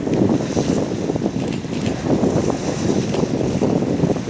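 Wind buffeting the microphone aboard a boat at sea, a steady rumbling noise.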